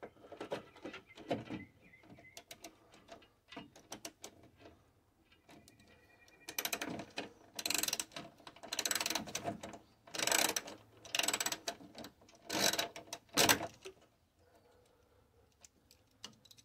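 Socket ratchet wrench clicking as the chassis mounting bolts are worked loose. Scattered small clicks come first, then about six quick bursts of ratcheting from around six seconds in until near the end.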